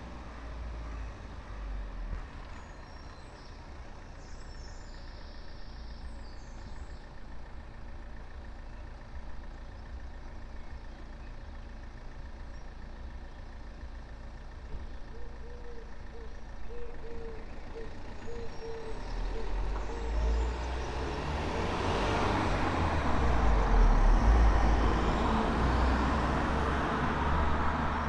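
Street traffic with a heavy road vehicle approaching. Its deep engine rumble and tyre noise swell over the second half and are loudest near the end, under a steady low traffic hum. A faint regular pulsing tone runs through the second half.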